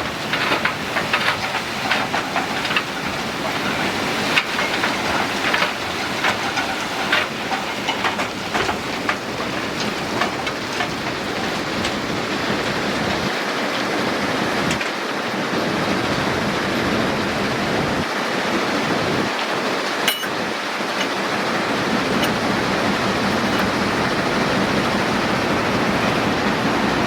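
Heavy machinery working: dense clanking and rattling over a continuous noisy rumble for the first ten seconds or so, settling into a steadier rushing noise.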